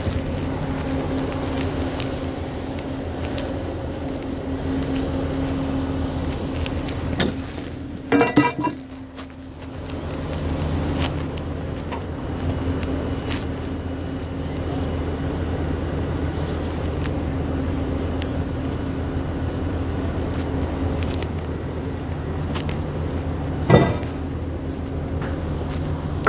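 A large engine running steadily at an even pitch. About eight seconds in there is a brief loud ringing sound, and the drone drops away for a moment after it. A sharp knock comes near the end.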